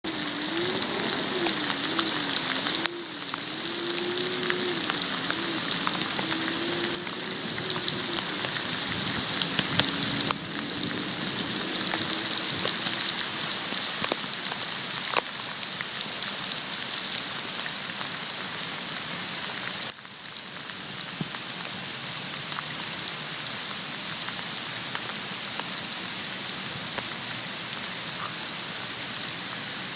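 Steady hiss of heavy rain and rushing floodwater. Through the first half a faint tone wavers up and down about once a second, and the overall level drops in sudden steps a few times.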